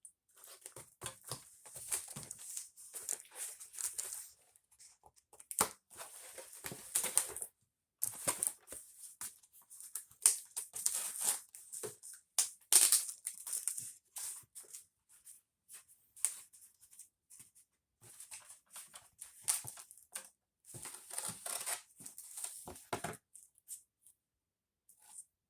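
Shipping package being opened by hand: irregular crinkling, rustling and tearing of the packing material, stopping about two seconds before the end.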